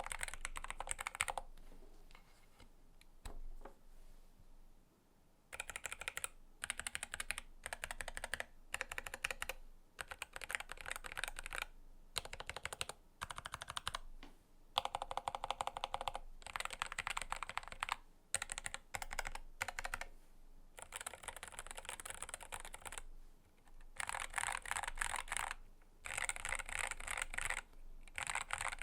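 Typing on a mechanical keyboard fitted with an FR4 plate and Gateron KS-33 Brown tactile switches: fast clacking keystrokes in bursts, broken by short pauses.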